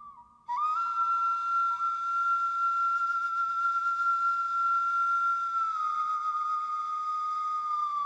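Background music: a whistle-like synthesized tone comes in about half a second in with a short upward slide, holds one high note, and steps down slightly near six seconds in.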